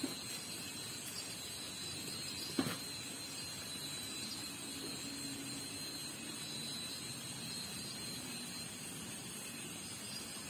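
Steady outdoor night ambience: an even hiss with a thin, high steady tone running through it, and one short knock about two and a half seconds in.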